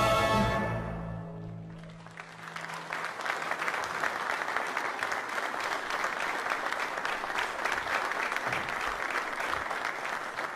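The closing chord of a male klapa choir with orchestra fades away, and from about two seconds in a theatre audience applauds steadily.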